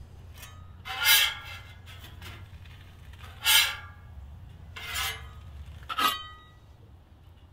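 Metal spatula scraping and clinking against a steel griddle top, four separate strokes, the last with a short metallic ring.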